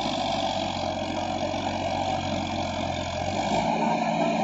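Farmtrac 60 tractor's diesel engine running steadily while pulling an 11-tine cultivator through the soil, its low tone shifting about three and a half seconds in.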